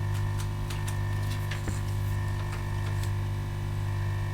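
Steady electrical mains hum from the workbench equipment, with a few faint ticks over it.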